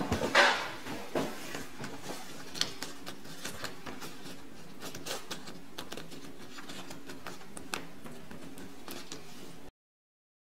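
Crumpled paper banknote crinkling as it is picked up and slowly unfolded by hand, with a loud burst of crackling about half a second in and then scattered small crackles and clicks over a faint steady hum. The sound cuts off suddenly near the end.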